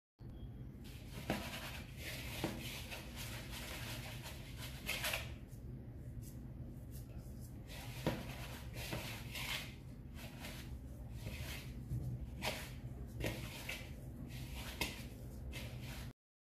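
Hands rubbing and mixing a crumbly ground-almond, sugar and margarine filling in a wooden bowl: soft rustling with scattered light clicks over a low steady hum.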